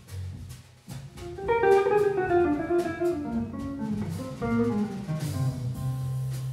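Jazz guitar on a hollow-body archtop playing a descending run of single notes, starting about a second and a half in, with heavy natural reverb from a marble hall. A steady low bass line and cymbal strokes from the drum kit sound under it.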